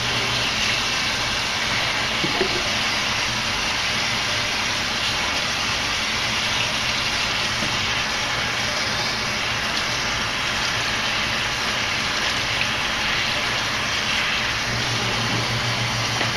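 Kitchen faucet running hot water in a steady rushing hiss as hands are rinsed under it, cutting off at the very end.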